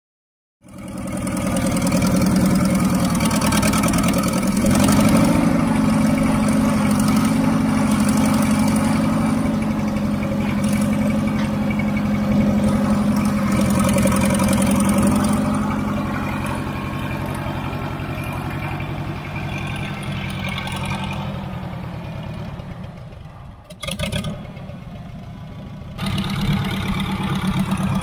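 Small loader tractor's engine running steadily while it lifts and carries a pallet on its forks. The sound breaks off abruptly twice near the end.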